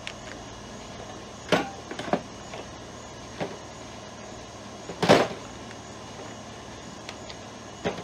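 A handful of short knocks and clunks of metal parts being handled, the loudest about five seconds in, over a steady background hum.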